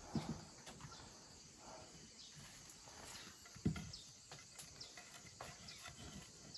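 Quiet hand-work of stuffing a chopped mushroom mix into a green bamboo tube over a banana leaf: faint rustling and handling with two soft knocks, one just after the start and one a little past halfway.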